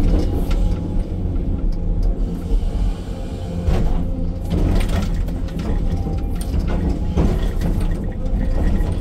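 Excavator's diesel engine running under load, heard from inside the operator's cab, as the hydraulic arm works the bucket through dirt. Several knocks and scrapes from the bucket and linkage stand out about 4, 5 and 7 seconds in.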